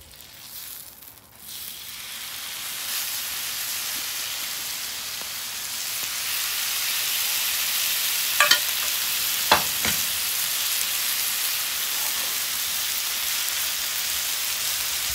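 Marinated ribeye steaks sizzling as they sear on a hot Camp Chef flat-top griddle. The sizzle starts softly as the first steak goes down and grows louder once the second one is laid on. Two sharp clicks, one about a second after the other, come near the middle.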